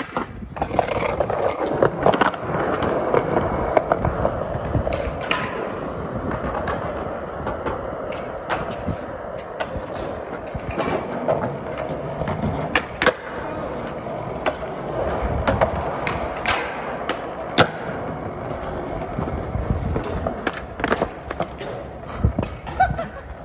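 Skateboard rolling on concrete pavement: a steady rumble of the wheels, broken again and again by sharp clacks from the board.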